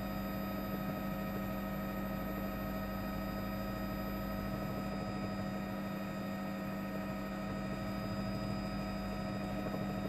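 Steady drone of a news helicopter, a constant hum that does not change.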